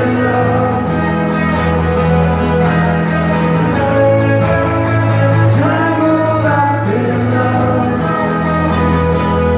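Live acoustic band performance: strummed acoustic guitars with a lead vocal singing over them.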